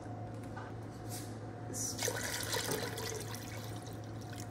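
Water poured from a plastic mug into a pot of nihari gravy in an aluminium pressure cooker, splashing and gurgling, heaviest about halfway through. A steady low hum runs underneath.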